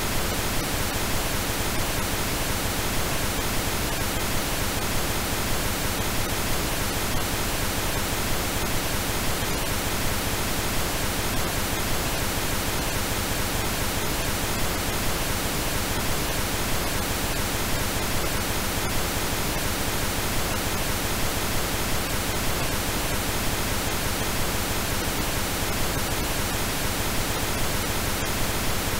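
Steady pink noise: an even, unchanging hiss across all pitches. It is a generated noise track that the uploader presents as an approximation of artichoke leaf's "molecular magnetic field" frequency.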